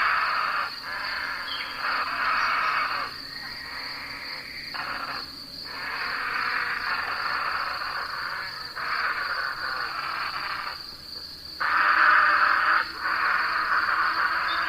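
Night chorus of insects: a steady high trill runs underneath louder rasping swells that start and stop every second or two.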